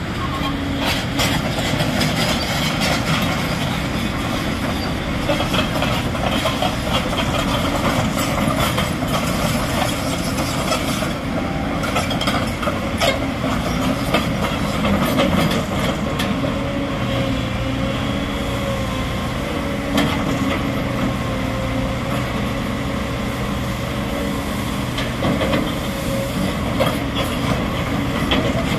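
Sany crawler excavator's diesel engine running steadily, with a whine from its hydraulics and many clanks and rattles from its steel tracks and bucket as it drives forward and digs into a pile of crushed stone.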